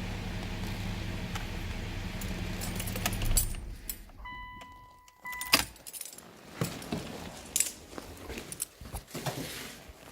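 A car engine idling steadily, then switched off about three seconds in. A short electronic chime follows, then a series of irregular sharp clicks and knocks after the engine has stopped.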